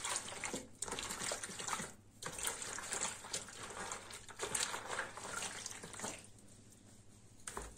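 A hand swishing and squeezing through warm milk in a plastic bowl to dissolve fresh yeast: an irregular wet sloshing that dies down about six seconds in.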